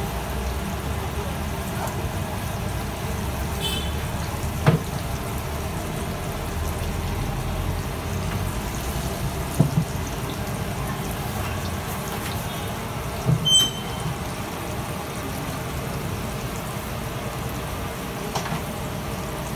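Samosas deep-frying in a large kadai of hot oil, a steady sizzling and bubbling. A few sharp knocks stand out about five, ten and thirteen seconds in.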